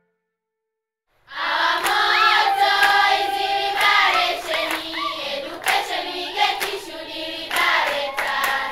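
Silence for about a second, then a group of young voices singing together with hand clapping.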